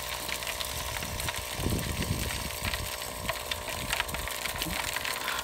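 Vibratory ore feed hopper running: a steady vibrator hum, with crushed ore rattling and trickling down its chute into a bucket. There is a brief low rumble about two seconds in.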